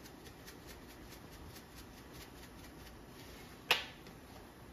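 Ground black pepper being shaken from a seasoning bottle, a faint rhythmic rattle of about four shakes a second that stops about three seconds in. Then a single sharp knock, the loudest sound here.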